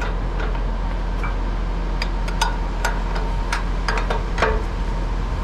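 A 1-1/2-inch combination wrench clinking sharply against a nut and the cultivator's steel frame as it is worked, about six clinks starting about two seconds in, over the steady low hum of an idling engine.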